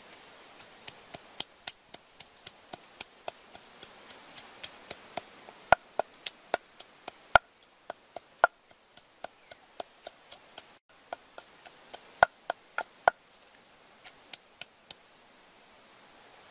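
Wooden pestle pounding chillies in a wooden mortar: a steady run of sharp knocks, about three a second, some much louder than others, stopping shortly before the end.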